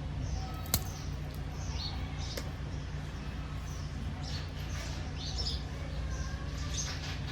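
Small birds chirping off and on over a steady low hum, with a sharp click about three-quarters of a second in.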